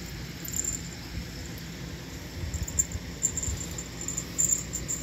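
Rustling and bumping as a cat wrestles a toy on a cord on a fleece blanket, close to the microphone. From about halfway on come faint, very high ticks, several a second.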